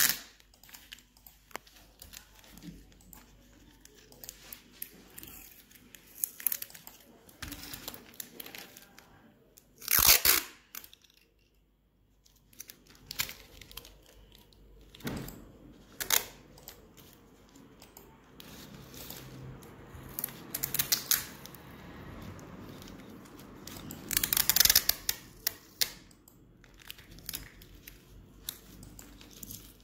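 Adhesive tape being pulled off the roll in several sudden rasping strips, the loudest about ten seconds in, with quieter rustling and handling in between as the tape is wrapped tight around a cardboard band on a bundle of plastic straws.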